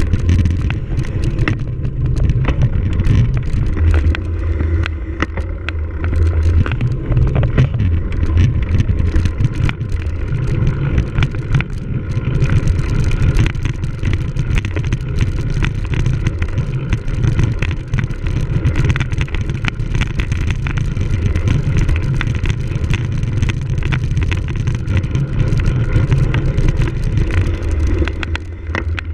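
Wind buffeting a bike-mounted camera's microphone as a cyclocross bike is ridden, with a rumble that swells and fades. Rattles and clicks come from the bike and tyres going over rough ground.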